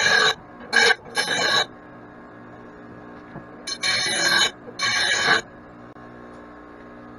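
Grinding wheel biting into a steel mower blade in five short bursts of under a second each, three close together at the start and two more about four seconds in: rough grinding of rock-damaged blades before they go on the finish grinder. A low steady hum runs underneath.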